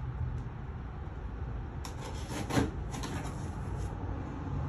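Cardboard boxes being handled and rummaged through, rubbing and scraping, with a single dull knock about two and a half seconds in, over a steady low hum.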